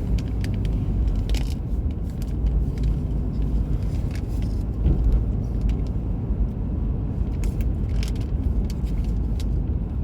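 Road and engine noise inside a moving car's cabin: a steady low rumble with scattered light clicks and rattles.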